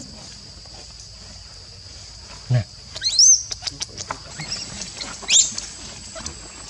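Baby monkey crying in short, high, rising squeals, two main cries about three and five and a half seconds in. A short low thump comes just before the first cry, over a steady high hiss.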